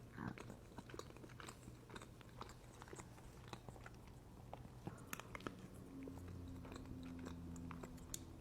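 Close-miked chewing of moist chocolate cake: soft, wet mouth clicks and smacks. From about six seconds in, a low hum lasts for about two seconds.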